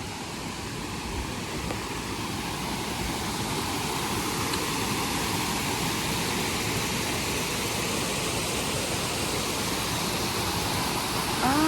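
Steady rushing noise that slowly grows louder.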